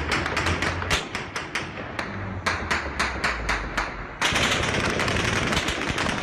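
Gunfire in an armed clash: rapid shots about five a second, then from about four seconds in a denser, unbroken burst of automatic fire.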